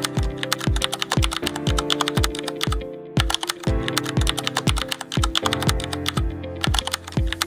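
Rapid computer-keyboard typing clicks, a typewriter-style text sound effect, over background music with a steady kick-drum beat about two times a second. Everything drops out briefly about three seconds in.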